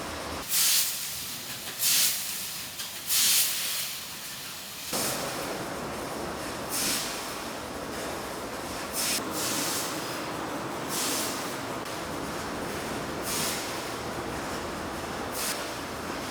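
Fiber laser cutting machine at work, its assist gas giving short high hisses every second or two over a steady background noise.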